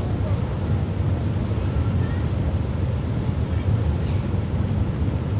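A river in flash flood, its floodwater rushing with a steady, deep roar.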